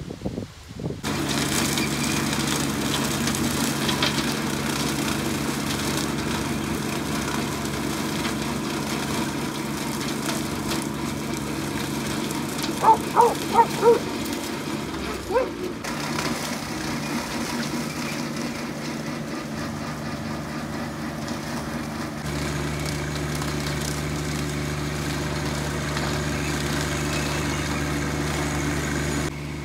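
John Deere 1025R subcompact tractor's three-cylinder diesel engine running steadily while it pulls a bush hog through a garden plot. Four short high chirps come about halfway through. Later the engine grows louder and deeper as the tractor comes closer.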